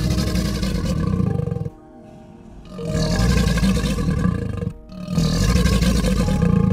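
Crocodile growling three times, each a low, rough rumble lasting one and a half to two seconds, over background music.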